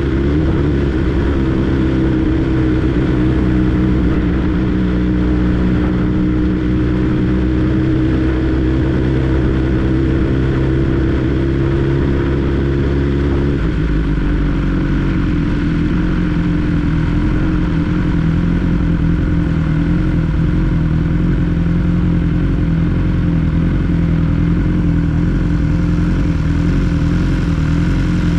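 The inline-four engine of a 2022 BMW S 1000 R motorcycle runs steadily under way, and its note changes abruptly about halfway through.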